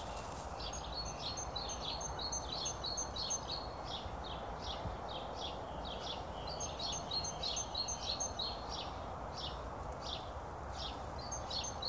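A small wild songbird calling over and over in short high chirps, a couple each second, broken by runs of quicker twittering notes about a second in, around the middle and near the end. A steady background hiss of outdoor noise lies underneath.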